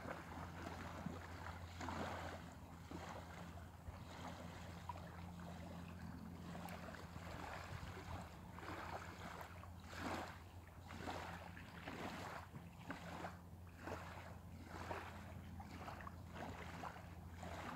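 Small waves lapping on a sandy shore, a soft wash about every second, with wind on the microphone and a steady low hum underneath.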